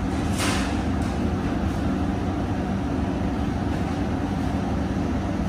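Steady low hum and rumble of indoor air-conditioning and ventilation, with a brief soft hiss about half a second in.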